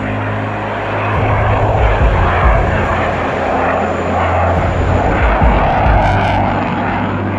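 Jet noise of a HAL Tejas fighter's single GE F404 turbofan in a display pass: an even, steady rushing sound.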